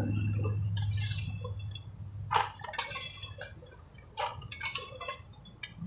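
Stainless steel kitchen tongs clicking and tapping against clear plastic takeaway boxes as fries are dropped in, a scattered run of light clicks and plastic rustles. A low steady hum underneath fades out over the first two seconds.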